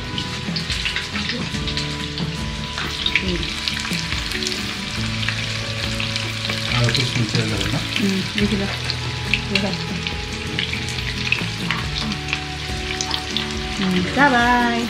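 Breadcrumb-coated chicken pieces deep-frying in a pot of hot oil, a steady sizzle full of small crackles and pops.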